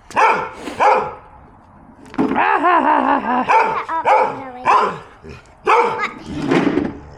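A dog barking repeatedly in short barks, with a fast run of barks from about two seconds in.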